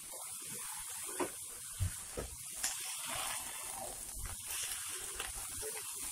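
Faint sizzling of vegetable fried rice stirred in a wok over high flame, with a few light clicks and scrapes of a steel spatula against the pan in the first few seconds.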